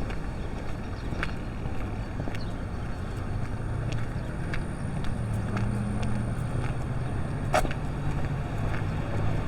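Low steady rumble of road traffic, with a vehicle engine's hum growing louder from about halfway through.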